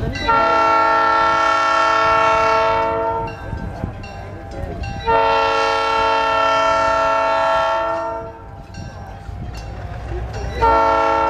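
Southern Pacific 3100 diesel locomotive's air horn sounding a chord: two long blasts of about three seconds each, with a gap of about two seconds between them, and a third blast starting near the end.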